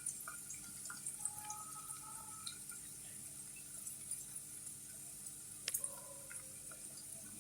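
Faint sizzling of onions, green chillies and spice powders frying in oil in a kadai, with a light click about five and a half seconds in.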